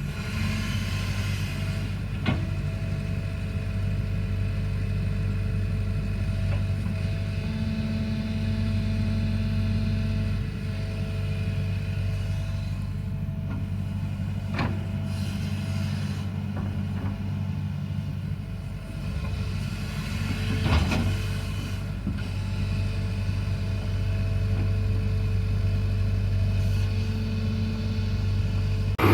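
Excavator's diesel engine running steadily, with a few short sharp knocks.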